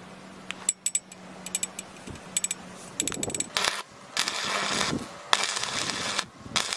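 Arc welder crackling and sputtering in several short bursts while welding the end of a rusty steel pipe, after a few light clicks and taps in the first half.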